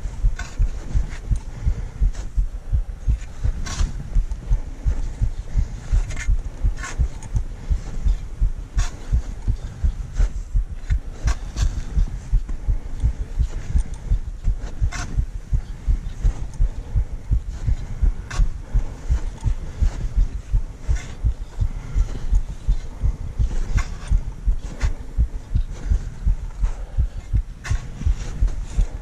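A climber's footsteps trudging in snow, a low thump about twice a second, with sharp clicks now and then.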